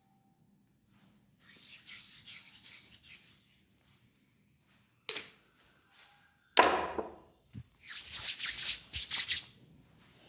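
Hands rubbing a leg in brisk massage strokes, two spells of quick hissing rubs. Between them come a short click and a sharp knock, the knock being the loudest sound.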